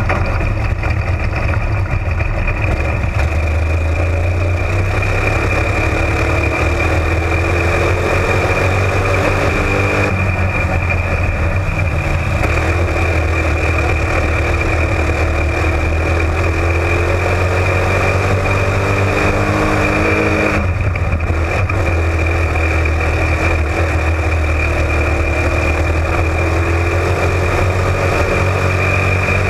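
Onboard sound of a Florida Spec Modified sling-shot dirt race car's engine at racing speed. The engine pitch climbs on the straight, breaks off about ten seconds in and climbs again, then drops suddenly about twenty-one seconds in as the driver lifts for the turn.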